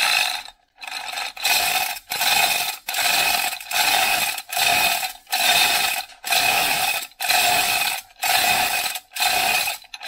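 Manual chain hoist being worked by its hand chain: the chain clatters through the hoist and the mechanism ratchets in about a dozen even strokes, a little over one a second, with short breaks between pulls.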